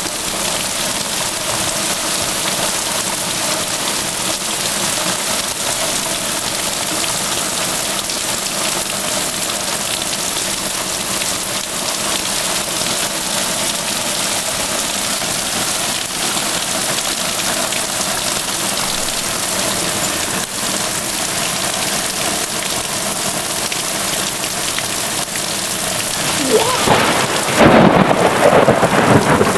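Heavy rain pouring steadily in a thunderstorm, with a loud rumble of thunder rising near the end.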